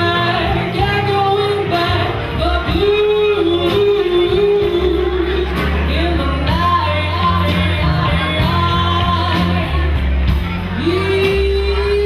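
A woman singing live with a small band: long held notes that scoop up into pitch, over bass, guitar and drums.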